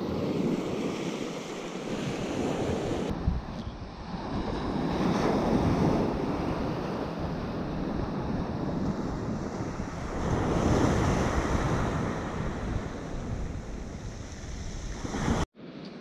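Surf breaking on a beach, swelling and easing in about three broad surges, with wind buffeting the microphone. The sound cuts off suddenly near the end.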